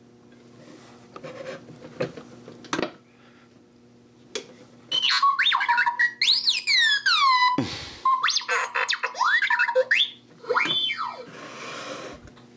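R2-D2 talking cookie jar's built-in speaker playing R2-D2's electronic beeps and warbling, rising and falling whistles, set off by the flipped-open lid. A few clicks come before the beeps, which start about five seconds in and stop about ten seconds in.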